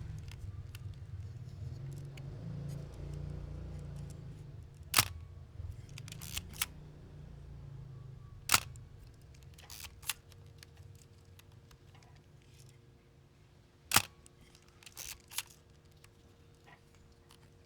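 Minolta XG-7 SLR film camera's shutter firing three times, several seconds apart, each a sharp click, during a shutter test. Quieter clicks and handling noise come between the releases.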